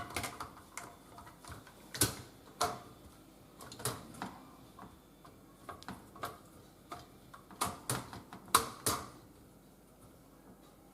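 Irregular light plastic clicks and knocks from a dishwasher spray arm and its manifold being handled and pushed into place.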